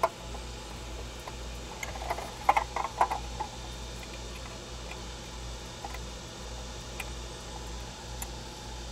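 Small plastic clicks and taps as a bass-knob bracket is handled and fitted against a plastic console trim panel, a quick cluster of them between two and three and a half seconds in, over a steady low hum.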